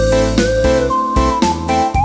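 Background music: a melody that steps and slides in pitch over a steady beat.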